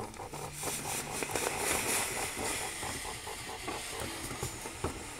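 Steam iron hissing as it releases steam onto a jersey seam being pressed; the hiss swells to a peak about two seconds in, then eases off, with a faint low hum in the first second or so.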